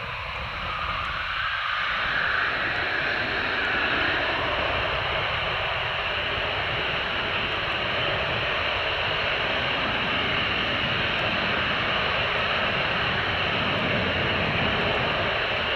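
Eurofighter Typhoon jet noise, a steady rushing roar of turbofan engines. It grows louder over the first couple of seconds, then holds steady.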